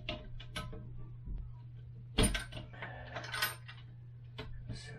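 Clicks and knocks of a toilet seat and its hinge hardware being handled, with a louder knock about two seconds in and a short clatter just after three seconds.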